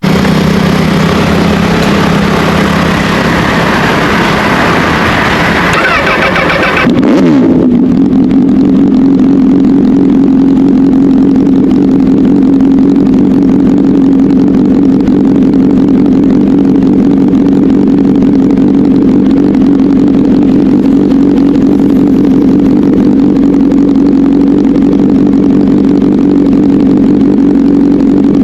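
Honda CBR1000RR inline-four with an SC-Project exhaust, running loud. For about the first seven seconds it gives a loud rushing sound; the pitch then drops and settles into a steady drone for the rest.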